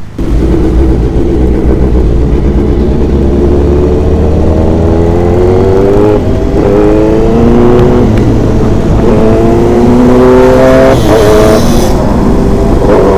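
Superbike engines accelerating hard, the pitch climbing through the revs and dropping back at each upshift, four or five times in a row.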